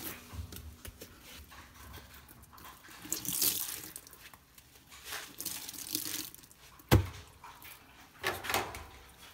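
Soaked sponges squelching and dripping as a wet hand squeezes and handles them in a washing machine drum. The sound comes in several short wet bursts, with one sharp knock about two-thirds of the way through.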